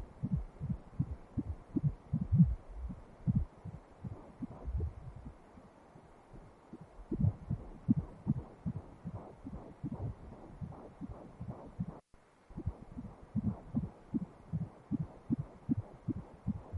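Fetal heartbeat picked up by an obstetric Doppler ultrasound: fast, regular pulses, about two and a half a second, fitting a fetal heart rate. They weaken for a few seconds midway and cut out for a moment near the end.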